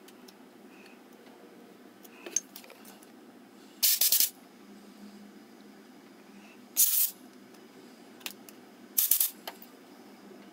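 Three short sprays, each under half a second, from an aerosol can fired through its straw into small carburetor passages to clean them, with a few light clicks of small parts in between.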